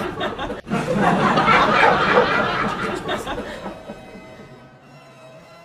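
People laughing, loudest in the first three seconds, then dying away, with faint steady tones left near the end.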